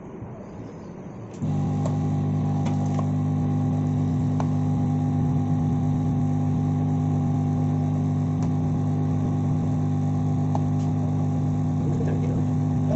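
A small electric machine switches on about one and a half seconds in and runs with a loud, steady hum, with a few faint clicks over it.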